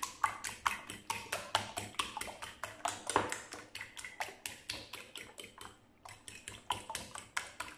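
Fork beating egg in a ceramic bowl: quick, regular clinks of the tines against the bowl, about four a second, with a brief pause about six seconds in.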